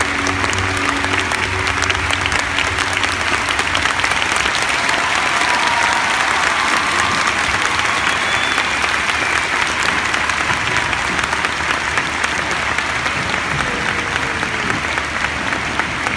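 Large arena crowd applauding, a dense steady clapping at the end of a figure skating program. The last notes of the program music die away about a second in.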